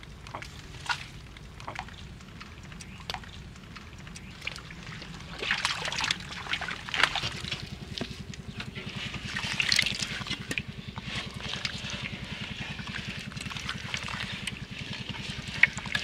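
Water splashing and trickling around a metal bowl used to scoop fish out of shallow muddy water, in short bouts, loudest about six and ten seconds in, with a few sharp clicks in the first seconds.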